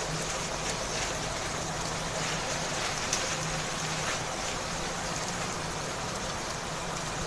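Goat liver pieces frying in ghee and masala in a pan: a steady sizzle with faint crackles, with a faint low hum underneath. The water has cooked off and the liver is frying in the fat it has released.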